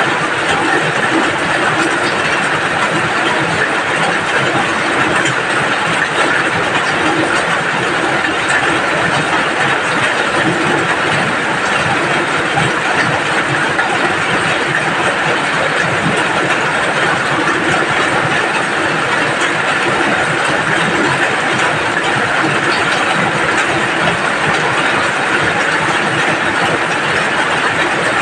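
Steady rain falling, an even, unbroken hiss that does not change.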